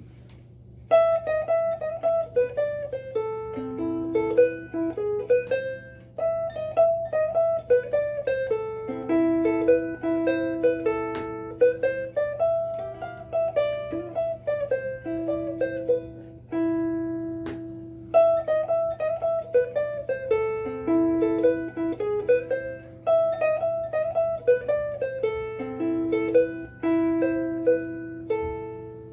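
Kala KA-CLM-S laminate mahogany soprano ukulele, fitted with a bone saddle and Aquila black strings, played solo as a plucked melody with harmony notes in phrases. There are brief breaks about six and seventeen seconds in. A faint steady low hum runs underneath.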